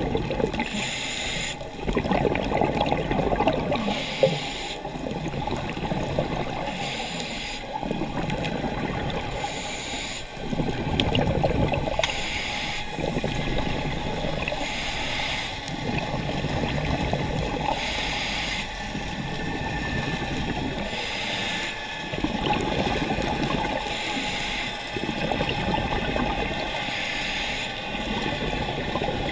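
Diver breathing through a scuba regulator underwater: a short hiss on each inhale, then a longer bubbling exhale. The cycle repeats about every three seconds, roughly ten breaths in all.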